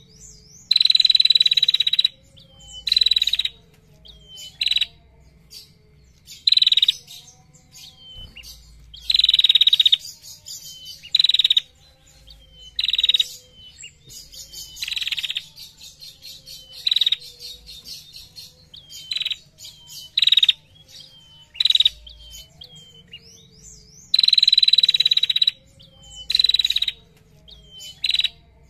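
A caged prenjak, a small songbird, calling: loud, rapid, buzzing trills ('ngetir') repeated every second or two, some lasting about a second, with softer short chirps between them.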